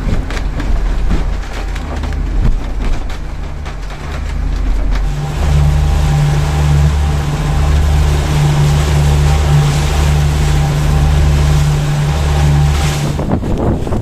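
Sailing catamaran's engine running under way while motoring into a head swell: a steady low drone that grows louder about five seconds in, with scattered knocks from the boat in the first few seconds. Near the end, wind buffets the microphone.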